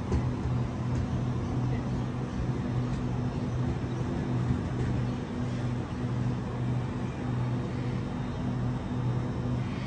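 Steady low electrical hum from a standing Sydney double-deck electric train's onboard equipment, a deep drone that swells and eases slightly in a regular rhythm, over a constant rushing background.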